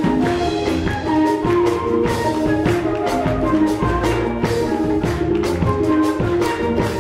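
Choir music with drum kit and tambourine keeping a steady beat under held sung or keyboard notes.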